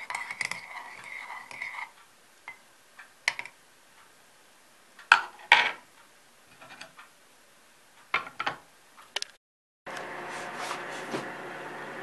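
Metal spoon clinking and knocking against a glazed ceramic cooking pot while stirring buckwheat, with light scattered clicks and two loud knocks about five seconds in. After a short break near the end, a steady hum runs on.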